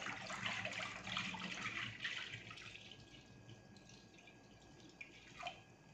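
Milk poured in a stream into a wide pan already holding milk, a steady liquid splashing that fades to faint after about two to three seconds.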